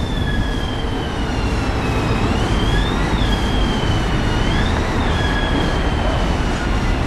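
Sirio low-floor tram rounding a curve with its wheels squealing on the rails: a high squeal that wavers, dipping and rising twice in pitch, over the low rumble of the tram rolling past.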